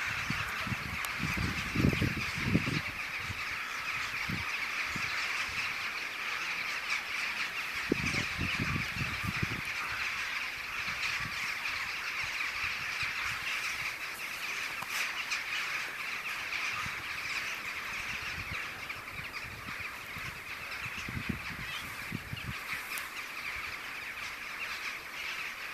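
A huge winter flock of rooks gathering to roost at dusk, thousands of birds cawing at once into a continuous dense din. Low rumbles break in about two seconds in, again around eight to nine seconds in, and once more past twenty seconds.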